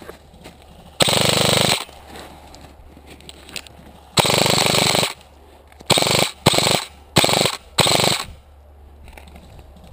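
Airsoft rifle firing on full auto in six short bursts: two longer bursts about a second and four seconds in, then four quick short bursts close together near the end.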